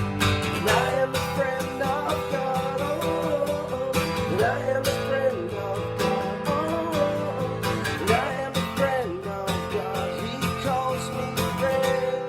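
Strummed acoustic guitar playing a worship song without words, with a wavering melody line above the chords.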